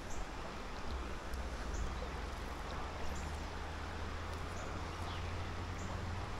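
Shallow river current running over rocks, a steady rush of water with a low rumble underneath. Short high bird chirps come about once a second.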